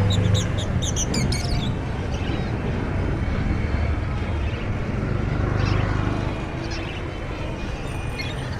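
Many caged pet birds chirping in quick, repeated high calls, thickest in the first second or so and again about midway, over a steady din of market crowd noise.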